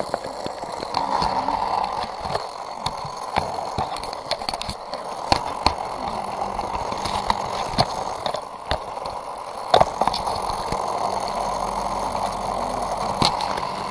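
Handling noise of a webcam being moved about against plastic Hot Wheels track pieces: many sharp clicks and knocks over a steady hiss.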